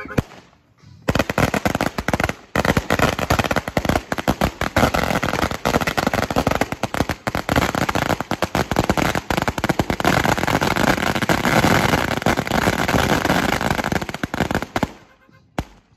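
A string of Chinese firecrackers going off: a dense, rapid run of loud bangs that starts about a second in, keeps going for some fourteen seconds, then thins to a few last pops and stops near the end.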